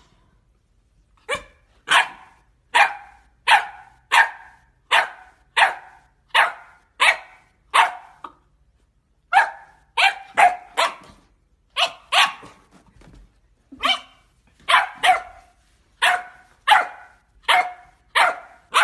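A young puppy barking at its own reflection in a mirror: a long run of short, sharp, high-pitched puppy barks, about one every three-quarters of a second, with a couple of brief pauses.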